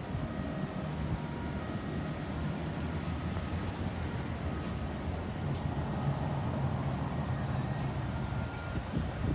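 Motor vehicle engine running with steady road traffic noise, a low rumble and no siren sounding.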